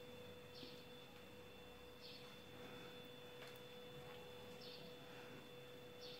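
Near silence: a faint steady hum, with a faint short high chirp repeating about every second and a half.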